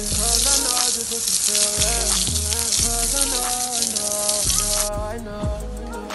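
Water from a hose spraying onto a horse's legs and hooves: a steady hiss that cuts off sharply about five seconds in. Background music plays throughout.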